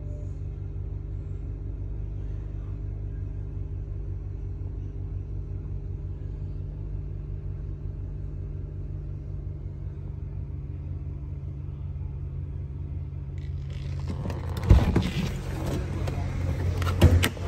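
BMW 335i's 3.0-litre turbocharged inline-six idling steadily, heard from inside the cabin. Near the end the driver's door is opened and the noise swells, with two sharp knocks about two and a half seconds apart.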